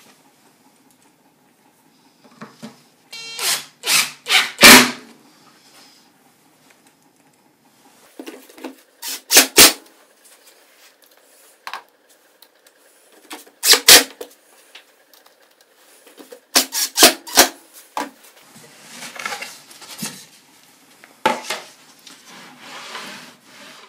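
Hand work on a plywood table saw sled on the saw's cast-iron top: several groups of sharp knocks and clatter as tools and the sled are handled, then a few seconds of sliding and rubbing near the end.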